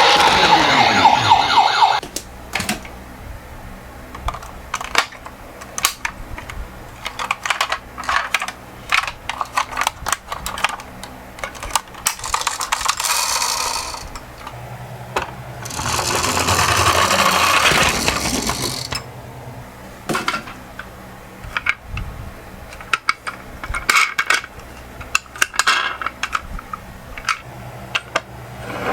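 Toy ambulance's electronic siren sounding for about two seconds, then cutting off abruptly. After that come scattered plastic clicks and knocks of toy minicars being handled. Twice, a few seconds of rolling noise sound as the toy cars run down a slope.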